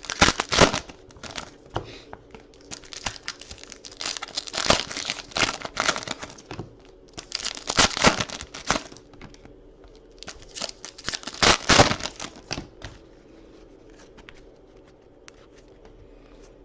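Trading-card pack wrappers being torn open and crumpled, in four separate bouts of rustling and crinkling, then only faint ticks of cards being handled.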